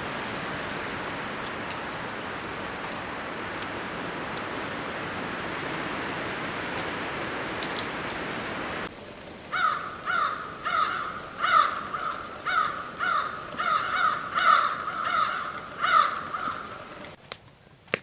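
A steady, even hiss, then from about nine seconds in a crow cawing over and over: about a dozen harsh caws at a fairly even pace, ending shortly before the end.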